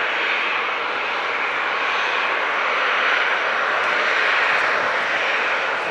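The Rolls-Royce Trent XWB turbofans of an Airbus A350-941 run as the airliner rolls along the runway after touchdown. It is a steady rushing jet noise that swells slightly and then eases.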